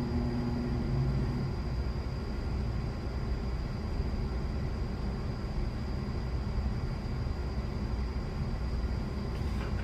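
Steady whooshing noise, like a fan or blower running, with a low hum that cuts out about a second and a half in.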